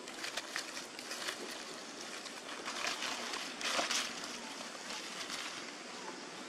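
Dry fallen leaves rustling and crackling under a baby macaque's steps, loudest around the middle.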